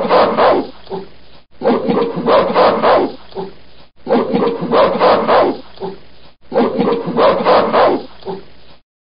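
Gorilla call, a short recording of about two and a half seconds played four times in a row; each pass is a quick series of loud pulses that trails off.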